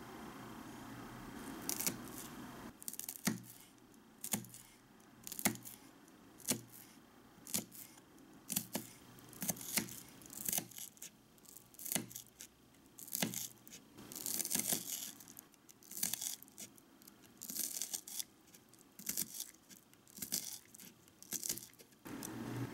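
Small knife slicing a small onion on a wooden cutting board: a crisp crunch as the blade goes through, then a tap on the board, about once a second.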